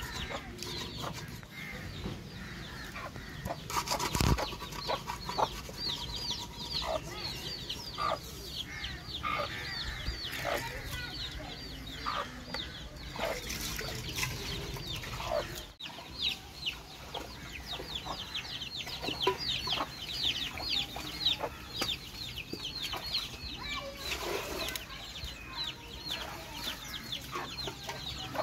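Chickens clucking and peeping: a dense, steady string of short, high, falling calls, several a second, with a sharp knock about four seconds in.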